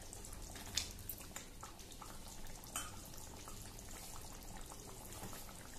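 Matar paneer gravy boiling in a kadai: faint bubbling with a few scattered soft pops.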